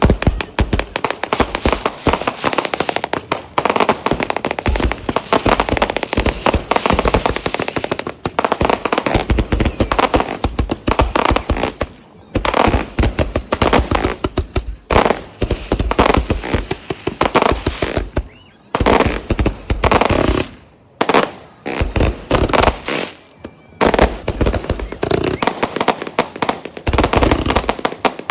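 Fireworks going off in rapid, continuous strings of sharp cracks and pops, with a few brief lulls before the crackling starts again.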